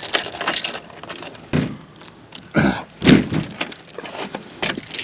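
Keys jangling while a padlock is unlocked, then a few knocks and a scrape about one and a half to three seconds in.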